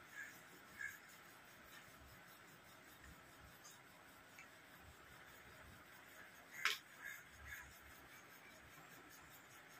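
Near silence broken by a few short bird calls: two near the start, then a group of three about two-thirds of the way through, the first of these the loudest.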